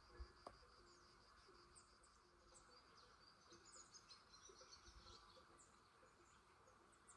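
Near silence: faint outdoor ambience with scattered distant bird chirps and a faint high insect buzz that fades out after the first couple of seconds.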